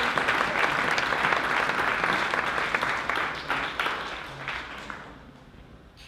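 Audience applauding, the clapping thinning and dying away over the last two seconds.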